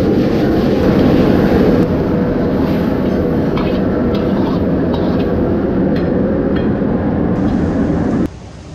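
Loud, steady roar of a restaurant kitchen, typical of a gas wok burner and range hood running, with a few light clinks of utensils in the middle; it cuts off abruptly near the end.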